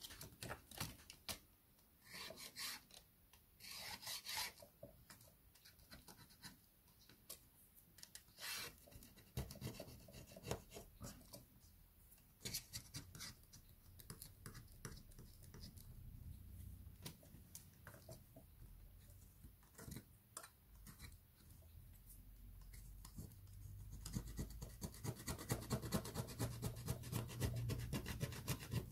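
Small hand tools scratching, rubbing and clicking against a tablet's parts during disassembly. The sounds come as scattered clicks and short scrapes, then a faster, louder run of scraping strokes near the end.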